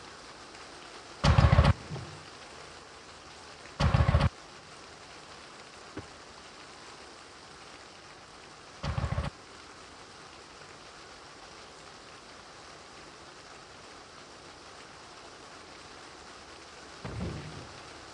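Steady heavy rain during a storm, broken by three brief, very loud low thumps about a second, four seconds and nine seconds in, and a softer one near the end.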